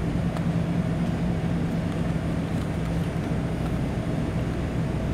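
Steady low hum with an even hiss over it: the room's background noise.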